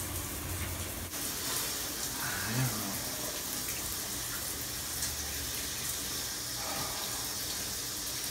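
Shower water spraying steadily, a running hiss of water falling in a shower stall.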